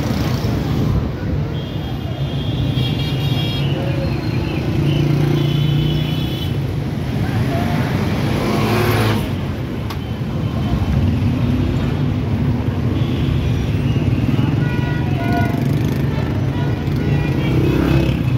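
Busy street traffic: auto-rickshaw and motorcycle engines running close by, with short horn beeps several times.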